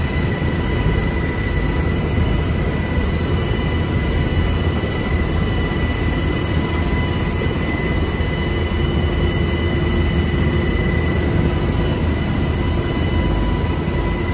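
Helicopter turbine engines running: a loud, steady roar with a high, even whine.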